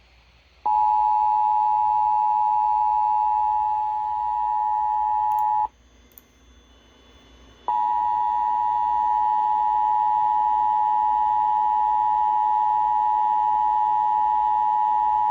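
Emergency Alert System attention signal: a steady, loud two-note tone. It sounds for about five seconds and breaks off, then starts again about two seconds later and holds.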